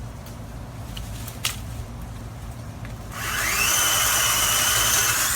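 Greenworks 40V brushless cordless chainsaw: after a few clicks, about three seconds in its electric motor whines up in pitch and holds steady while the chain cuts quickly through a tree limb. It stops near the end.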